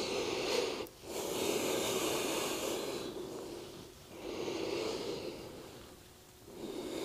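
A woman's slow, deep yoga breathing: about four audible breaths of two to three seconds each, with short silent breaks between them.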